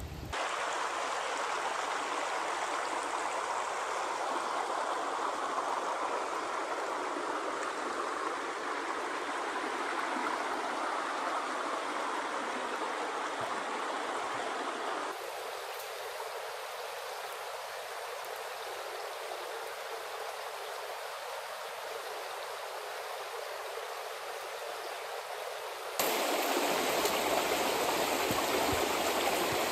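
Shallow creek water flowing and burbling over rocks in a steady rush. It drops quieter about halfway through and comes back louder and fuller near the end.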